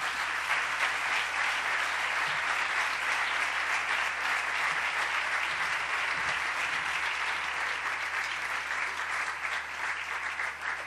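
Audience applauding steadily after a speech, a dense crowd of hand claps that thins slightly near the end.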